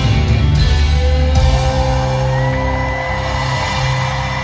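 Live band music led by electric guitar, amplified in an arena. About a second and a half in, the heavy low part drops away and long held notes ring on.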